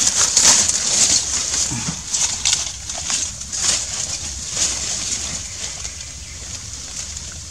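Rustling of dry leaves and clothing in short bursts as a crouching person shifts position and handles a rifle, busiest in the first couple of seconds, then thinning out.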